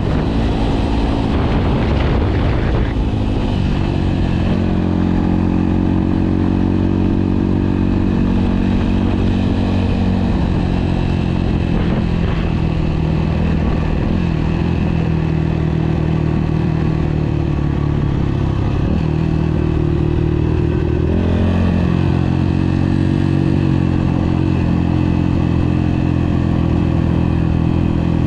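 Kawasaki KLX150's single-cylinder four-stroke engine running under way on a gravel road. The revs rise and fall in the first few seconds and change again about three-quarters of the way through.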